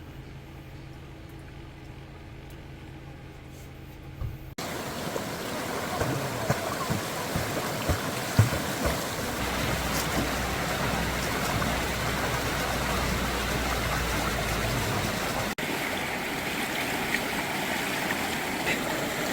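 A steady low engine hum for about four seconds, then, after a cut, a valley stream rushing over rocks, with a few scattered knocks and splashes.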